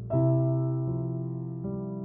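Slow, soft background music on keys: a chord struck just after the start and dying away, with the notes changing twice more, about one and one and a half seconds in.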